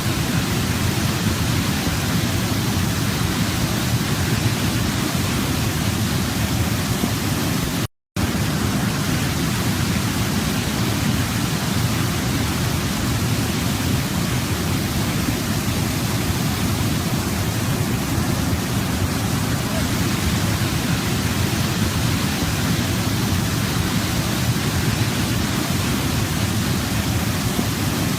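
Waterfall, water rushing and cascading in a steady, even roar, with a split-second dropout about eight seconds in.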